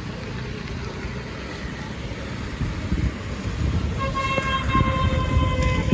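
A vehicle horn sounds one held note for about two seconds near the end, over a steady low rumble of traffic and engine noise.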